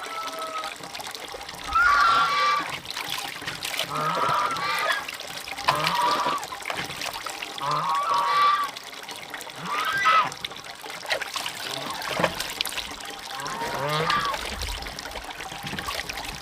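Poultry calling repeatedly, about seven short calls roughly two seconds apart, over a steady trickle of water.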